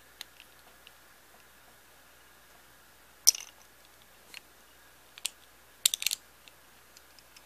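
Beyblade Burst top's parts clicking as they are fitted and locked together: a few light clicks, a sharper click about three seconds in and a quick run of clicks about six seconds in.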